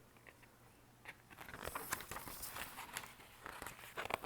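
Paper pages of a picture book being handled and fumbled at while someone tries to turn a page: soft rustling with small taps and clicks, starting about a second in.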